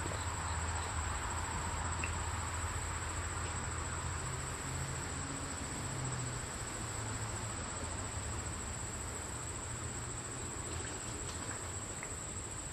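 A steady, high-pitched insect chorus: one continuous unbroken trill, over a low background rumble.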